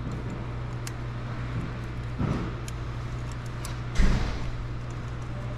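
Steel snap ring being pushed and bent by hand into its groove on a final drive torque hub's brake piston: light metallic clicks and scrapes, with a louder knock about four seconds in, over a steady low hum.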